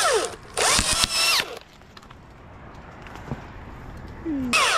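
Chainsaw revved in short bursts, the pitch falling and rising: twice in the first second and a half and once more near the end, with the saw running quietly in between.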